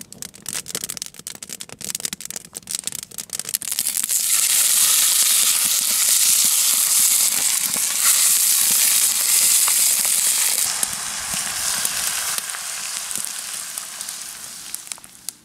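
Trout fillets sizzling as they fry in a pan over a campfire, starting about four seconds in and fading away near the end. Before that, the campfire crackling and popping.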